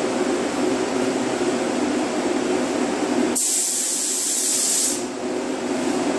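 Paint spray gun spraying: a steady rush of compressed air that turns to a thinner, higher hiss for about a second and a half past the middle.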